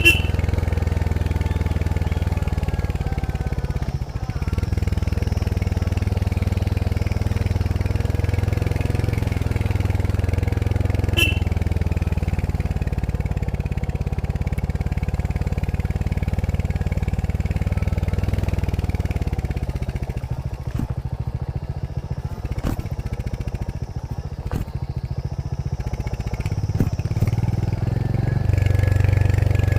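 Royal Enfield Hunter 350's single-cylinder engine running through its stock exhaust while riding, a steady low note. About two-thirds of the way through it turns quieter and uneven with a few sharp clicks, then comes back up near the end.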